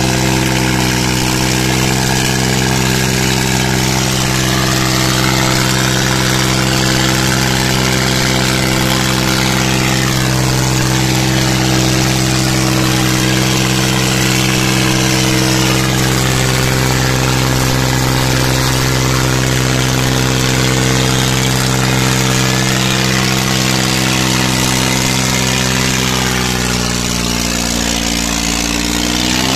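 Eicher and John Deere tractors' diesel engines held at full throttle under heavy load as the two tractors pull against each other in a tug-of-war, a steady loud drone. Near the end the engine note sags for a couple of seconds as an engine lugs down under the strain.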